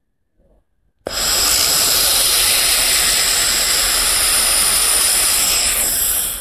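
Handheld laser welding gun welding 1 mm stainless steel, giving a loud, steady hiss with a few high whistling tones. It starts about a second in and stops suddenly near the end.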